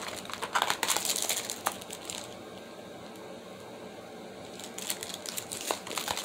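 Packaging crinkling and rustling as hands handle makeup brushes, in two spells: for about the first two seconds, then quieter, then crinkling again near the end.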